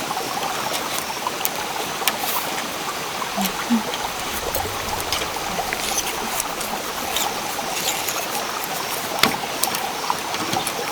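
Steady rush of running water, with scattered small clicks and knocks over it.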